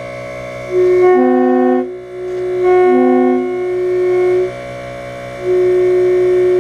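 Custom-made compressed-air train horn modeled on a Leslie S3L, blown in several blasts. A single held note is joined by fuller chords at about one and three seconds, the horn stops briefly near five seconds, then a long held note starts again.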